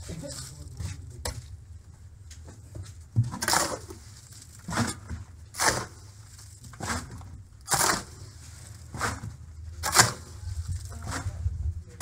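Masonry work with concrete blocks and mortar: a run of short scrapes and knocks, irregularly about one a second, over a low steady rumble.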